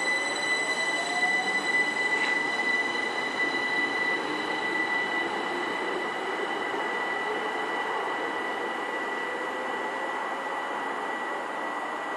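Stansted Express Class 379 Electrostar electric multiple unit pulling away, its traction motors whining with a pitch that rises as it gathers speed, over a steady high whine and the rumble of wheels on the rails.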